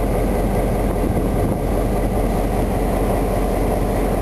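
ALCo RSD16 and EMD GR-12W diesel-electric locomotives working in tandem, their diesel engines running steadily under power, heard from the cab doorway of the moving lead unit.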